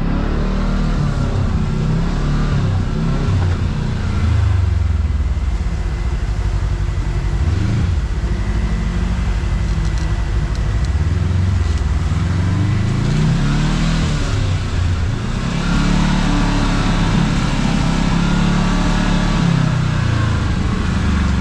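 Kawasaki KRX side-by-side's parallel-twin engine running under way, its revs rising and falling again and again as it is driven along a rough trail.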